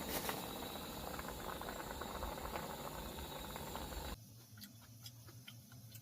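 Wind buffeting the microphone: a steady hiss over a gusty low rumble that cuts off suddenly about four seconds in, leaving a quieter background with a few faint clicks.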